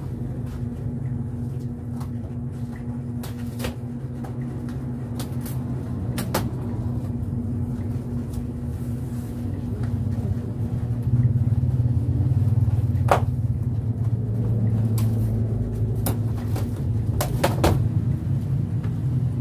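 A steady low mechanical hum, a little louder from about halfway, with a handful of sharp knocks and taps as a large cardboard box is handled, several in quick succession near the end.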